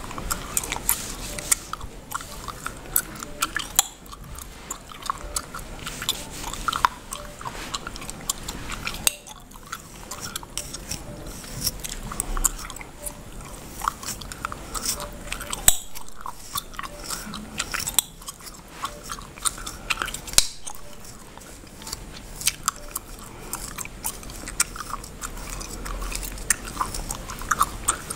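Bubblegum chewed and cracked close to the microphone: dense, irregular sharp pops and clicks, mixed with fingers and a comb scratching through the hair and scalp.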